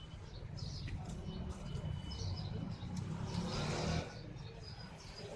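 Small birds chirping repeatedly in the background over a low steady rumble, with a short rustle lasting about a second, starting a little after three seconds in.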